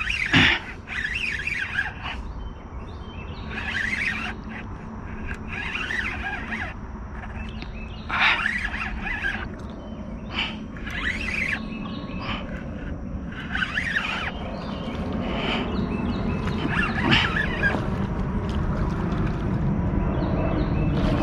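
Birds singing in short chirping phrases, repeated every second or two. A motorboat engine hum grows steadily louder over the last several seconds.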